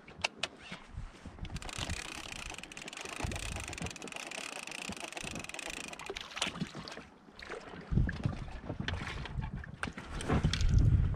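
Water lapping against an inflatable boat's hull, with scattered knocks from handling gear on board. Wind buffets the microphone in low rumbling gusts, loudest near the end.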